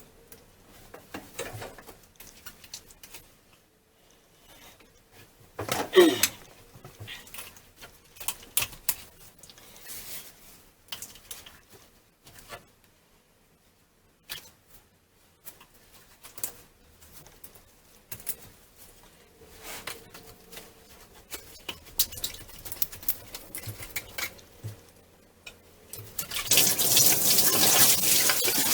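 Sandpaper scraping rust off the metal hose connector of a Mercruiser marine engine: irregular scratching strokes and light knocks, with a short sharp squeak about six seconds in. Near the end the sanding turns into a steady, louder rasping.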